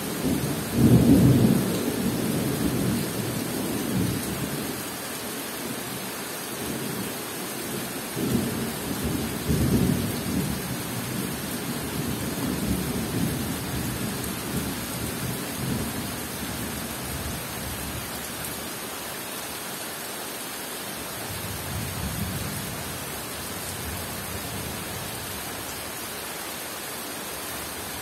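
Steady rain falling on forest foliage, with thunder rolling low underneath. The thunder is loudest about a second in and again around eight to ten seconds in, then fades away so that the rain carries on mostly alone.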